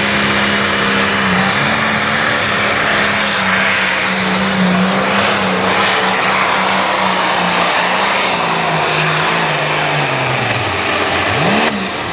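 A Limited Pro Stock pulling tractor's 640-cubic-inch turbocharged diesel running flat out under load during a pull. Its pitch holds steady, then sags steadily lower over the last few seconds as the load builds. Near the end it gives a quick rev up and back down.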